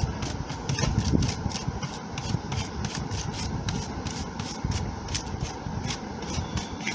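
Brush scrubbing dust off the inside of an opened laptop, in quick, scratchy strokes, several a second.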